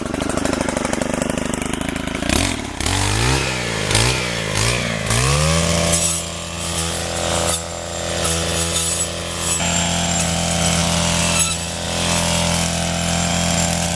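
Two-stroke brush cutter engine running, revved up and down several times in the first few seconds, then held steady at high speed.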